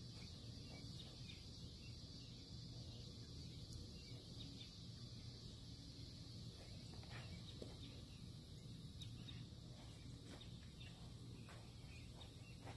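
Faint outdoor ambience: a steady high-pitched insect chorus over a low rumble, with a few faint ticks.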